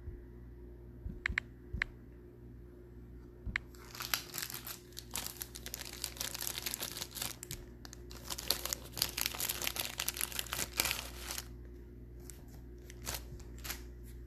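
Wrapping being crinkled and torn by hand, out of sight: a few separate clicks, then several seconds of dense crackling from about four seconds in, which trails off into scattered crackles near the end.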